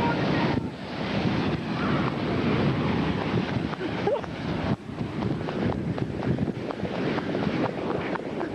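Strong, gusty wind blasting across a camcorder microphone, in the winds close to a violent tornado. The noise surges and dips unevenly, briefly dropping off a couple of times.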